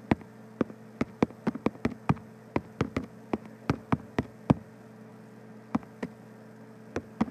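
Keystroke clicks from typing a short note on an iPad's on-screen keyboard: about a dozen and a half quick, irregular clicks, a pause of about a second, then a few more near the end.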